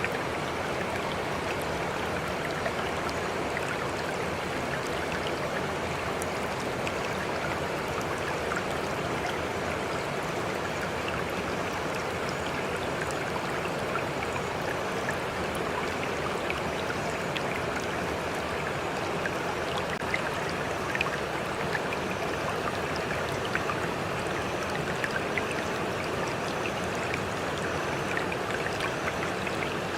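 Running water: a steady, even rush with small splashes and drips scattered through it.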